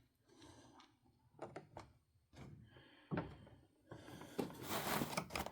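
Plastic model-railway packaging being handled: a few separate sharp clicks and knocks, then a spell of rustling near the end.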